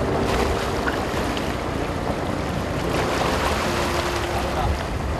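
Steady wind and sea noise aboard a fishing boat at sea, an even rushing without distinct events.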